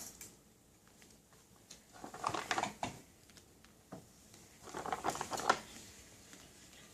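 Small plastic Play-Doh cans being handled and stacked into a tower, in two short bouts of light knocking and rustling, about two seconds in and again about five seconds in.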